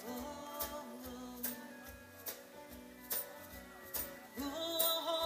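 Live band playing a slow country song: guitars with drum and cymbal hits on a slow, steady beat. A louder held note rises in near the end.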